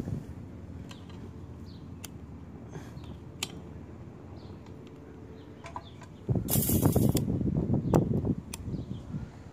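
Faint bird chirps over a low steady hum, then, about six seconds in, a sudden loud rustle followed by low rumbling on the microphone, typical of wind or the phone being handled.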